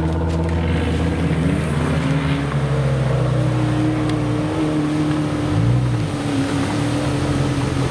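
Off-road buggy's engine revving hard under load as it climbs a steep slope with its wheels spinning in loose dirt. The pitch rises over the first couple of seconds, holds high, dips briefly about six seconds in and then picks up again.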